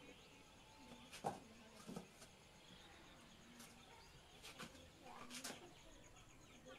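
Near silence, broken by a few faint knocks of fired clay bricks being set down and shifted, the sharpest about a second in, with faint chirps from chickens.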